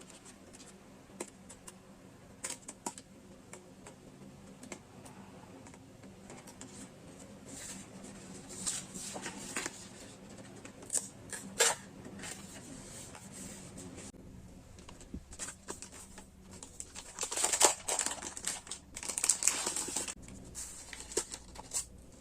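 Stationery and its packaging handled close to the microphone: scattered light taps and clicks, with stretches of crinkling and rustling that grow loudest in the last few seconds.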